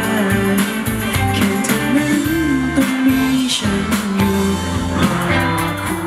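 Live pop song: a male singer singing into a handheld microphone over guitar-led band backing.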